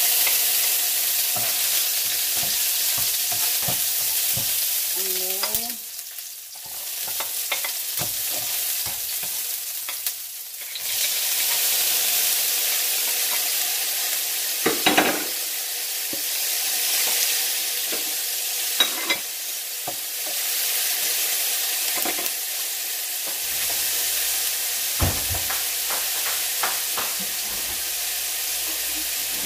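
Garlic, onion and diced tomato sizzling in hot oil in a frying pan, with scattered clicks and scrapes of a utensil stirring them. The sizzle dips briefly twice, around six and ten seconds in.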